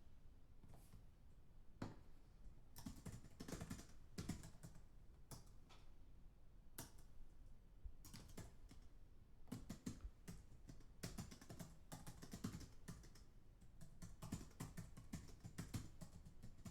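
Computer keyboard typed on fast and heard from a distance: quick, quiet runs of key clicks in bursts, with short pauses between them.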